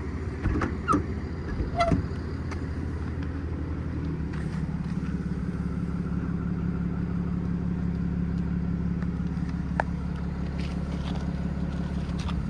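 Ford F-600's 7.3 V8 gas engine idling steadily, with a few light clicks and knocks in the first two seconds.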